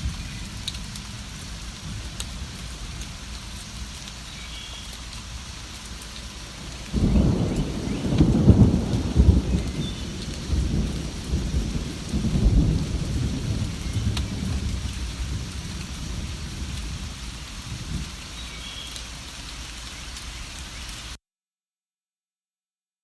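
Steady rain falling, with a low roll of thunder rumbling for several seconds from about seven seconds in, and a few faint bird chirps. The sound cuts out to silence about two seconds before the end.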